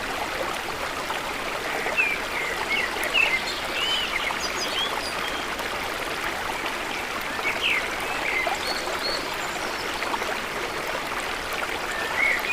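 Stream water running steadily, with short bird chirps scattered over it, in clusters a couple of seconds in and again about eight seconds in.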